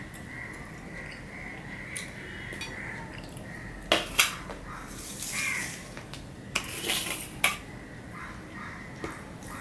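Stainless steel plates and bowls clanking and scraping on a tabletop as they are moved about. There are a couple of sharp clanks about four seconds in and a cluster more a few seconds later.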